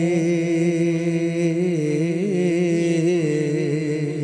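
A man singing a naat unaccompanied, drawing out the last word of a line in one long, slightly wavering held note.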